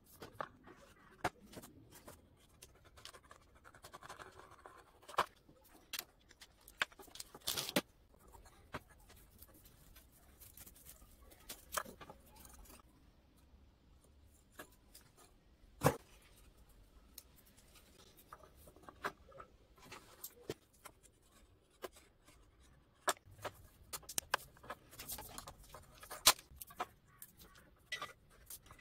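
Electrical cable being stripped by hand: scattered sharp clicks with soft scraping and rustling as the sheath, braided shield and wire insulation are cut and pulled apart, quiet overall.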